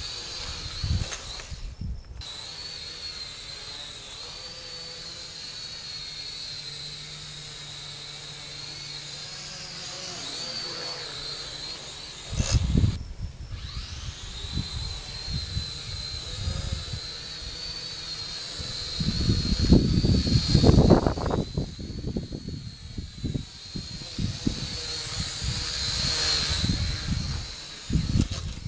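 Syma X5C quadcopter's small motors and propellers whining, the pitch wavering up and down as the throttle changes, cutting out briefly twice. Gusts of strong wind buffet the microphone, loudest about two-thirds through.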